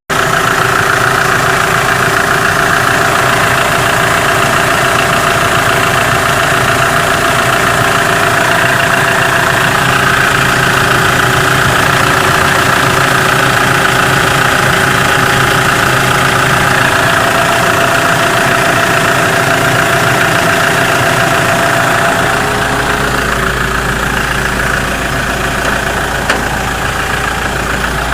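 Kia Sorento's 2.5-litre D4CB four-cylinder diesel idling steadily, with a deeper low rumble joining near the end.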